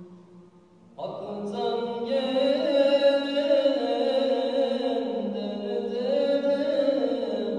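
Unaccompanied singing of a Turkish Islamic hymn (ilahi): a voice holding long, wavering, ornamented phrases. It comes in about a second in after a brief pause.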